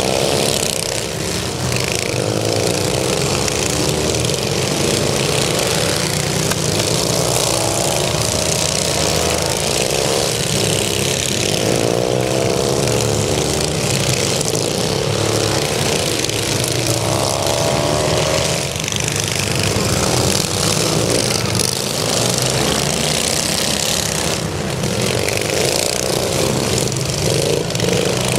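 Several racing riding lawn mowers' small engines running hard together, their pitch rising and falling over and over as the mowers circle the track and pass close by.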